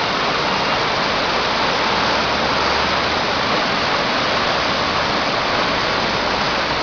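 Floodwater of a swollen river rushing in a steady, even roar of water.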